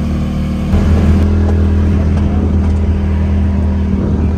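Side-by-side UTV engine running as it drives, a steady low drone that picks up louder under throttle less than a second in and then holds.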